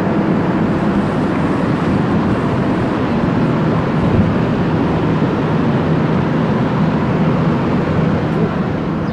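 Steady drone of a train's diesel engine running at idle, a low hum under a broad rumble.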